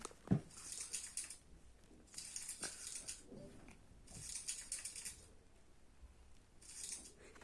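A knock just after the start, then four bursts of scratchy, rustling noise, each about a second long, with short pauses between them.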